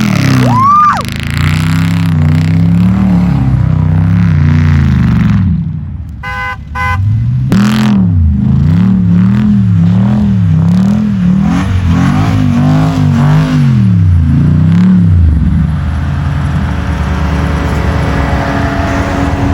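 A Jeep Grand Cherokee SRT8's 6.4-litre Hemi V8 revving up and down over and over, as in donuts and drifting. About six seconds in the engine drops briefly and a quick run of beeps sounds, then the revving picks up again and settles near the end.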